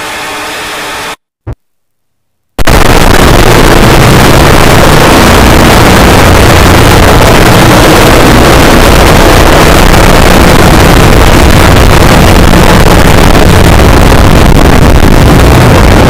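Extremely loud, heavily distorted and clipped static-like noise from digitally processed meme-edit audio. It starts abruptly after a moderate hiss cuts off about a second in, a single short blip, and a second and a half of silence, and then holds at full volume with no clear pitch.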